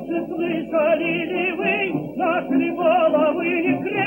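Background music: a melody with strong vibrato over a steady lower accompaniment.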